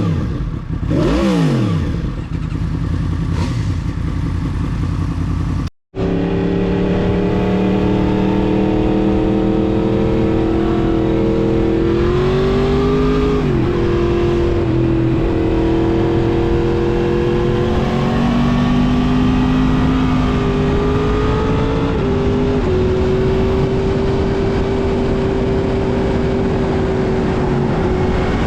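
Yamaha MT-10's crossplane inline-four running through a full Mivv aftermarket exhaust. It is blipped up and down a few times at first, then after a short cut it settles into a steady riding note. The pitch drops and climbs again once partway through and otherwise stays fairly even.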